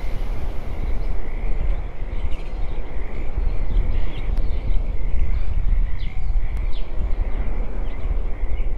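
Ambient outdoor soundscape: a steady low rumble like wind, with a thin steady high buzz and scattered short chirps over it.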